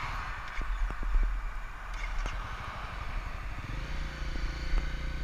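Motorcycle running on the road with a low rumble; a steady engine note sets in about three and a half seconds in.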